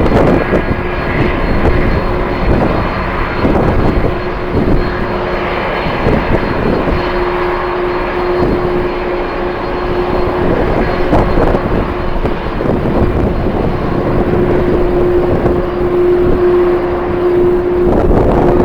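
Jet airliner engines running with a steady whine that grows louder about halfway through, under strong gusts of wind buffeting the microphone.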